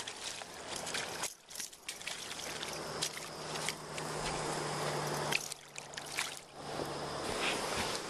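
Hooked bass splashing and thrashing in shallow water as it is landed, with water sloshing and scattered clicks and knocks.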